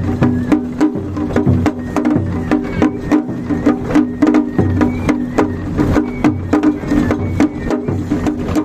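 Japanese festival drumming (matsuri bayashi): shime-daiko drums struck with wooden sticks in a fast, steady rhythm of sharp strikes, over a sustained pitched layer of the ensemble.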